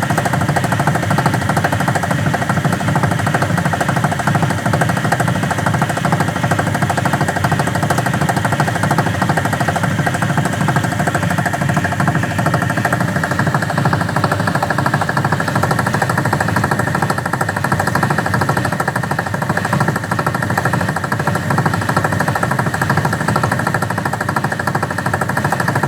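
Faulty washing machine on its spin cycle, making a loud, rapid, steady rattling clatter, the fault noise it makes when spinning.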